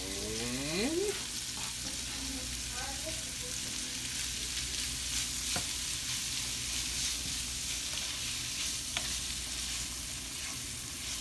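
Leftover steak frying in a pan with garlic and onions, a steady sizzle as it is stirred, with a few light clicks along the way.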